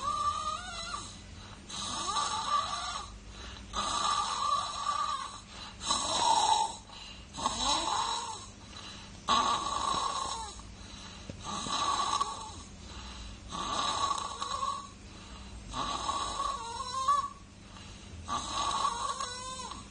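A baby snoring in slow, regular breaths, about one every two seconds, each breath carrying a high whistling note.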